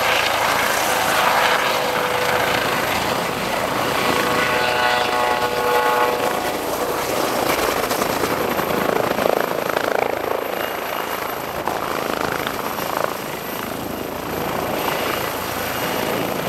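Eurocopter EC135 helicopter hovering low and manoeuvring close by, rotor and turbines running steadily with its rotor downwash rushing past. A whining tone sounds for a couple of seconds about four seconds in.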